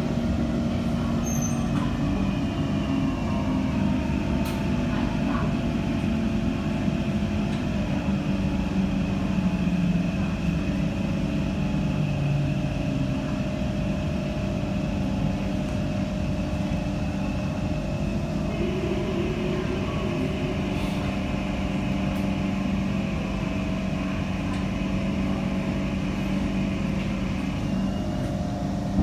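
Kawasaki-Kinki Sharyo C151 metro train with permanent-magnet synchronous (PMSM) traction motors running, heard from inside the car: wheel and running noise under several steady motor whines. A higher whine starts about two-thirds of the way through and stops shortly before the end, as the train slows to a halt at a station platform.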